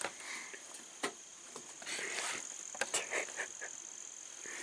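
Rustling and scattered light clicks of clothing and gear being handled close to the microphone, over a steady high-pitched insect drone.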